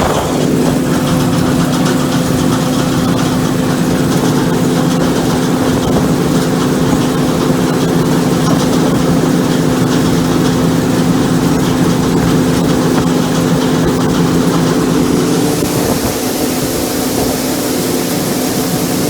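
Combine harvester running steadily, its engine and drives making a constant hum. About three-quarters of the way through the hum fades back and a rushing hiss takes over.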